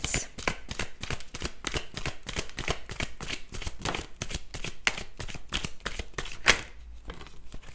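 A tarot deck being shuffled by hand: a quick, uneven run of papery card flicks and slaps, with a few cards falling out onto the wooden table. One louder snap comes about six and a half seconds in.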